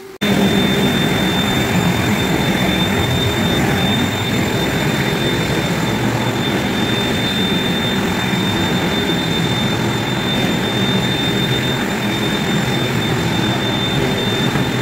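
Floor scrubbing machine running on a hardwood floor wet with wax stripper, its motor giving a steady high whine over a loud scrubbing noise. It starts abruptly just after the start and cuts off abruptly at the end.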